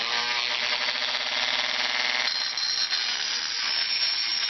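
Dremel rotary tool with a stone grinding wheel running at high speed against the cutting edge of a steel lawn mower blade, sharpening it. A steady, high-pitched grinding that lightens a little past halfway.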